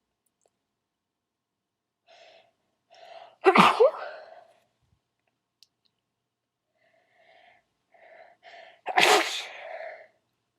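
A person's loud, wet sneezes, two of them, each preceded by a few short catching inhalations: the first about three and a half seconds in, the second near nine seconds.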